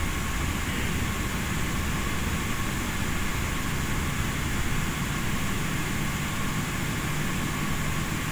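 Steady rumble and hiss inside the cabin of an Airbus A380-800 taxiing, with no sudden events and a faint low hum in the background.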